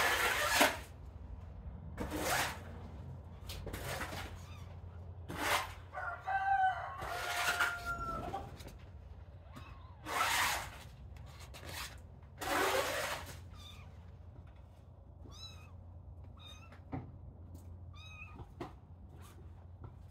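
Kitten meowing twice, each call about a second long, and later giving a few short, high squeaky calls. Between and under the calls come repeated short scuffling, rustling noises, the loudest sounds here.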